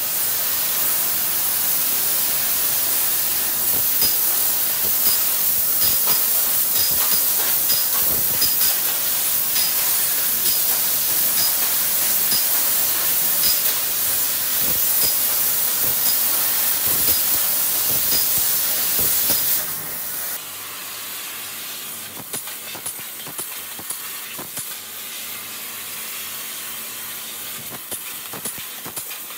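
Laser cutting machine cutting sheet steel: a steady hiss of the cutting head's assist gas with faint high ticks about once a second. About two-thirds of the way through the hiss drops to a noticeably quieter level.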